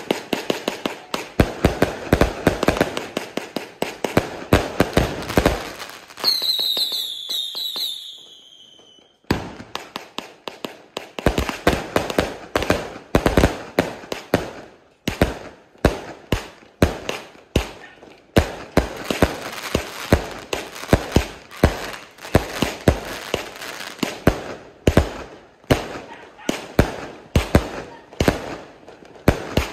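A 4-inch, 168-shot cake firework firing: rapid volleys of launch thumps and bursting bangs with crackle. About six seconds in, several falling whistles sound together, then after a short lull the rapid bangs start again.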